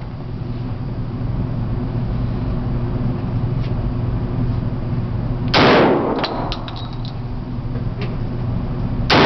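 Two shots from a Remington semi-automatic 12-gauge shotgun firing buckshot, about three and a half seconds apart, each with a short echo. A few light clicks follow the first shot, over a steady low hum.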